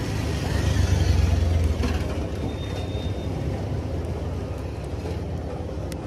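Low, steady rumble of a motor vehicle engine running, swelling for about a second shortly after the start and then easing back.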